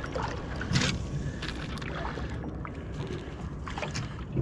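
Steady wind and water noise aboard a small boat at rest on the water, with a couple of light knocks, about a second in and again near the end.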